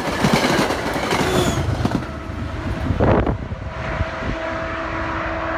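MBTA commuter rail train passing at speed. Its wheels click rapidly over the rail joints as the last coaches go by, and the clatter dies away about two seconds in. There is a brief rush of noise about three seconds in, then a fainter steady rumble with a thin steady tone as the train recedes.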